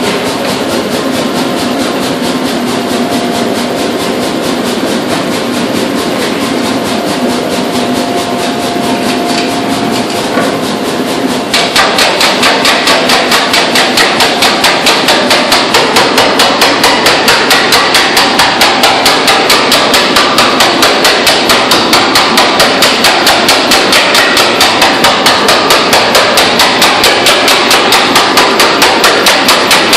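Hammer blows forging metal: a steady, dense din at first, then from about twelve seconds in a fast, very regular run of sharp strikes, about four a second.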